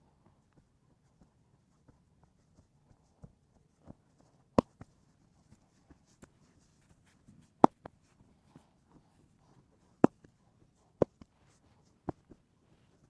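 Hands working over a person in a head massage: soft rubbing and light taps, with five sharp smacks spaced a few seconds apart, each followed quickly by a fainter second one.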